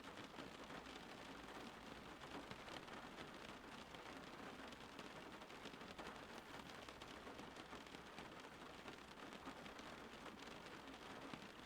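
Steady rain falling, a faint, even hiss of dense patter with no let-up.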